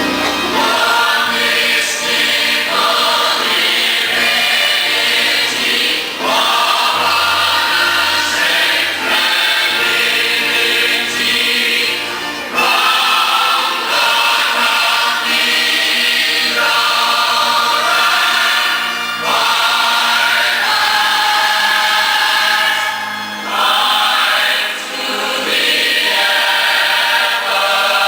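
An ensemble of voices singing together as a choir, a musical-theatre number in sustained phrases that break off briefly every few seconds.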